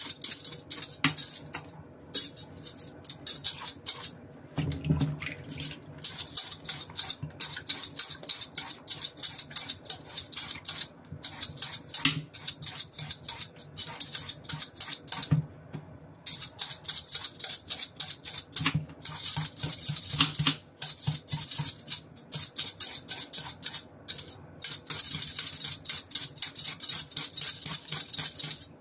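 Metal Y-peeler scraping strips off a cucumber in quick repeated strokes, with short pauses every few seconds and an occasional dull knock.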